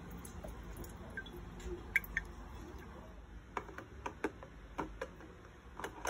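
Water poured from a glass carafe into an espresso machine's water tank, followed by a run of sharp light clicks and knocks of plastic parts being handled.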